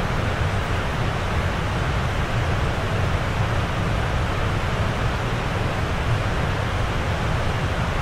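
Steady, unbroken rush of falling water with a deep low rumble under it, like a waterfall or heavy downpour.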